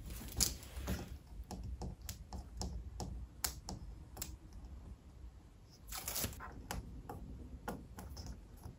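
Fingernails picking at the end of double-sided tape on a plastic screen frame, trying to lift it: irregular light clicks and taps, with a brief scratchy flurry about six seconds in.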